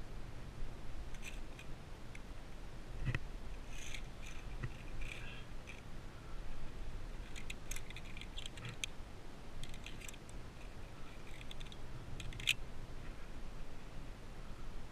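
Light metallic clicking and scraping of via ferrata carabiners on the steel safety cable, coming in scattered clusters as the climber moves, with a sharper click near the end.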